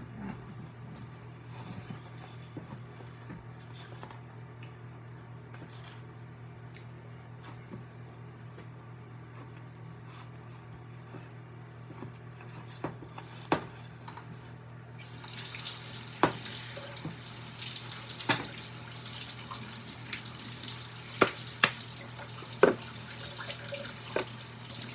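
Water running from a kitchen tap, coming on strongly about halfway through, with several sharp knocks of bowls or utensils against the sink, over a steady low hum.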